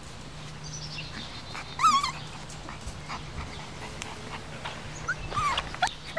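Five-week-old mini goldendoodle puppies whining. One wavering, high-pitched whimper comes about two seconds in, and a few short rising squeaks come near the end.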